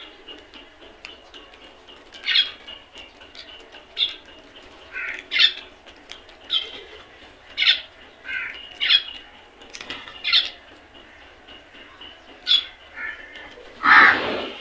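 A flock of crows calling: short caws about once a second, with a louder, longer caw near the end.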